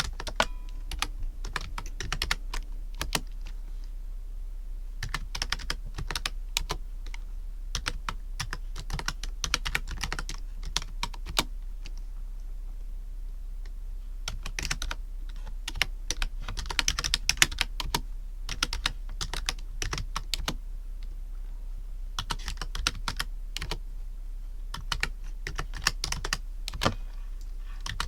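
Computer keyboard being typed on: keys clicking in quick irregular runs with brief pauses between them, over a steady low hum.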